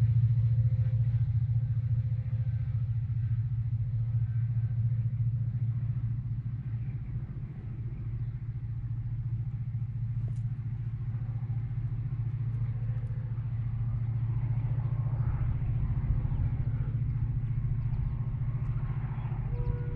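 Two diesel locomotives pushing a train up a grade, their engines working hard in a steady low rumble. The rumble eases slightly about a third of the way in, then grows again.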